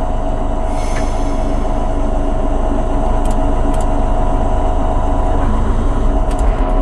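Homemade garden-railway locomotive running along its track at steady speed: a steady mechanical hum from its drive over a low rumble, with a few light clicks.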